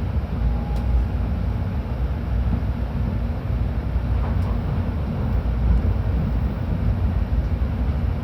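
Steady low rumble and running noise inside the cabin of a JR Kyushu-owned Shinkansen train on the move.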